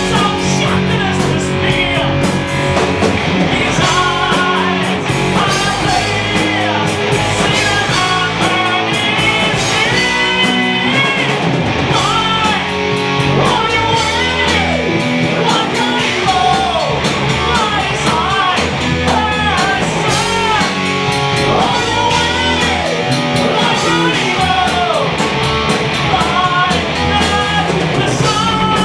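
Heavy metal band playing live: distorted electric guitars, bass and drum kit, with a lead singer.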